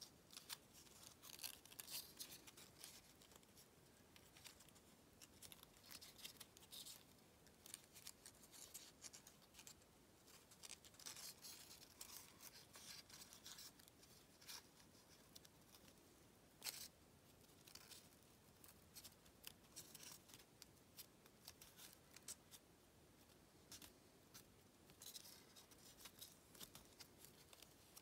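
Origami paper rustling and crinkling faintly as fingers fold and crease it, in irregular runs of short crisp crackles.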